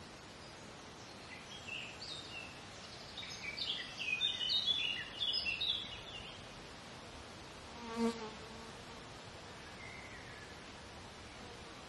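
A small bird sings a quick jumble of high chirps for about five seconds. About eight seconds in, a fly buzzes briefly past close by.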